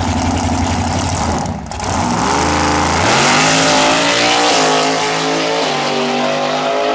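Outlaw 632 drag car's big-block V8 held at a steady high rev on the start line, then launching and pulling hard down the strip. Its pitch climbs through each gear and drops twice at the shifts.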